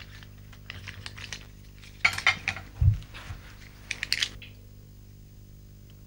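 Small porcelain paint dishes clinking as they are handled and a brush is worked in them: scattered light clinks and clicks, a cluster of them about two seconds in and a dull low bump about three seconds in, then nothing after about four and a half seconds.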